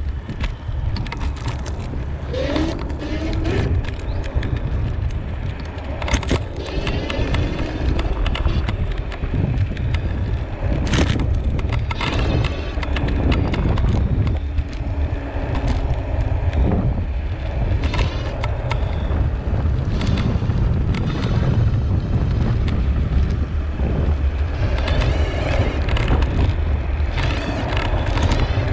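Dualtron Raptor 2 electric scooter riding along: a steady low rumble of wind over the microphone and the tyre rolling on asphalt and gravel, with scattered sharp knocks and rattles.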